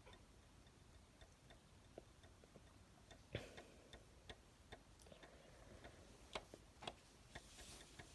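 Near silence with scattered faint clicks and taps at irregular spacing, a few standing out about three and a half seconds in and again near six and a half and seven seconds.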